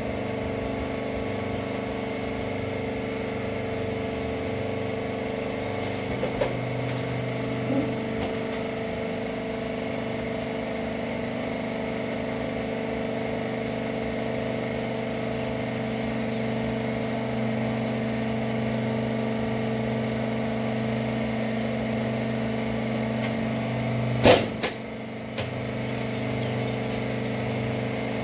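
Hydraulic rags baler's power unit running with a steady hum. There are a few light clicks, and near the end a single loud clunk after which the hum briefly drops.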